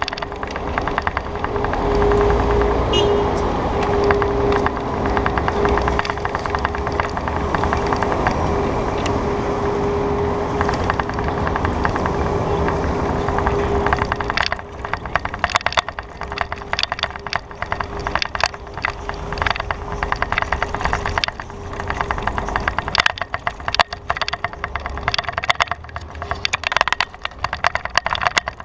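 City traffic heard from a moving bicycle: steady vehicle and road noise with a steady engine hum for the first half. About halfway this gives way to rapid, irregular clicking rattles as the bike and its mounted camera jolt over rough, patched pavement.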